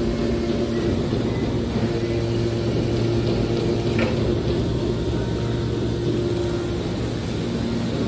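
Scrap aluminium hydraulic baler running, a steady hum from its hydraulic power unit as the ejection ram pushes a compressed bale of aluminium scrap out through the side door. A short crack is heard about four seconds in.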